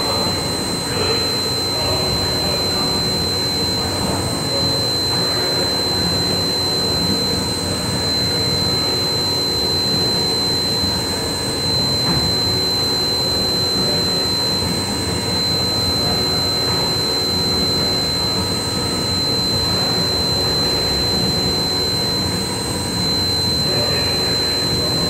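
CNC machine running: a steady mechanical noise with a constant high-pitched whine over it.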